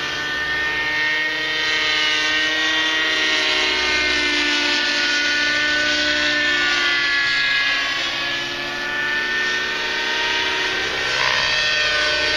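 Thunder Tiger 30 nitro RC helicopter in flight: its glow engine and rotors make a steady, high, many-toned whine whose pitch drifts slowly up and down as it manoeuvres.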